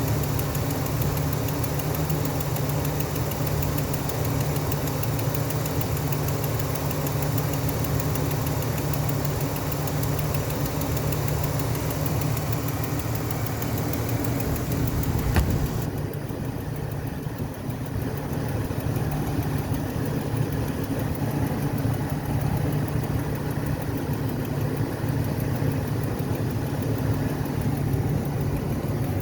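Vehicle engine idling steadily, with a fast regular clicking over the running noise that is what the owner is asking about. There is a single knock about halfway through.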